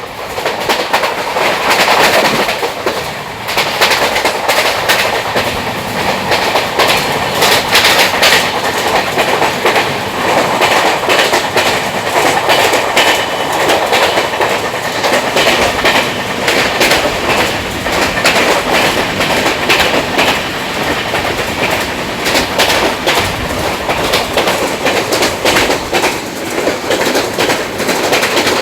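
Train wheels clattering over the rail joints, a steady run of rapid clicks and knocks over a constant rumble.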